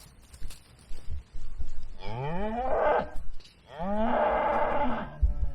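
Cattle mooing: two loud calls in a row, each about a second long and rising in pitch.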